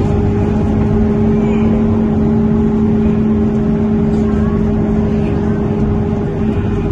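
Scania K230UB Euro V bus heard from inside the saloon while under way: a steady low running drone with a constant, unchanging hum from its uncommonly loud radiator. The lower hum tone drops away near the end.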